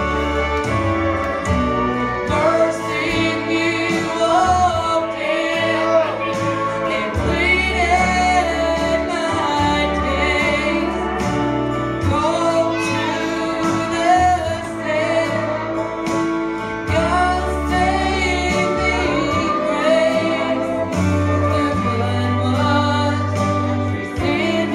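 A woman singing a slow gospel song with held, gliding notes over an instrumental accompaniment with a sustained bass line.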